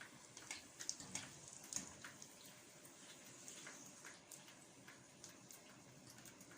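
Golgappa puris deep-frying in hot oil: a faint, steady sizzle with scattered small crackles and pops.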